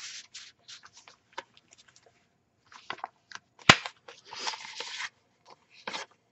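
Paper rustling and crinkling as the pages, tags and cards of a handmade junk journal are flipped and pulled out by hand, with one sharp snap a little past the middle.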